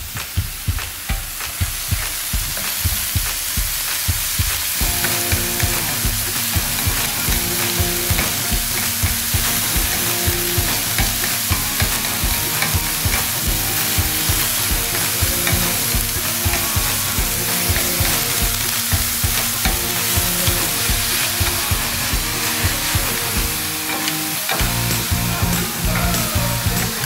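Shaved ribeye sizzling on the non-stick ceramic-coated cooktop of a Pit Boss Ultimate Griddle while two wooden spatulas chop and scrape it. The spatulas make a rapid, steady run of taps against the griddle, about three to four a second, over the frying hiss.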